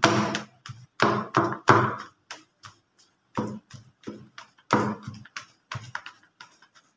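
Boiled taro and grated coconut being pounded in a plastic bowl with a hand-held tool: a string of dull thuds and knocks, irregular, about two a second.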